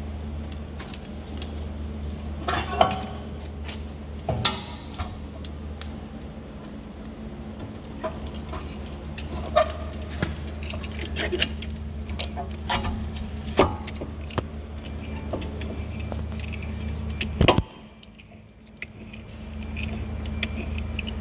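Metal hand tools and brake parts clinking and knocking now and then during a rear brake pad change, over a steady low hum. Near the end there is one louder knock.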